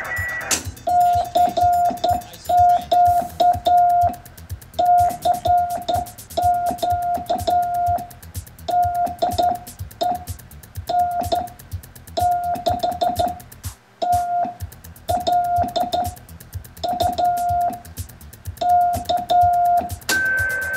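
Morse code (CW) from a Globe Chief 90A transmitter, keyed by hand on a straight key and heard as a steady beeping tone through the monitoring receiver. Dots and dashes come in groups separated by short pauses, with a click at the keying.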